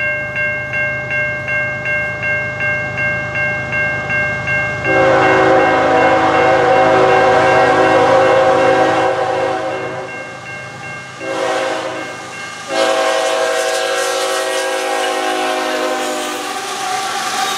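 Grade-crossing warning bell ringing about twice a second. About five seconds in, the air horn of a CN ES44AC locomotive starts sounding for the crossing: a long blast, a short one, then another long one whose pitch drops slightly as the lead locomotive rolls past near the end.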